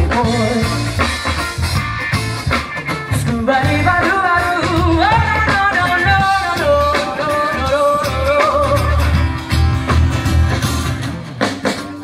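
Live band music through a PA: singing over strummed guitars with a strong, steady bass line.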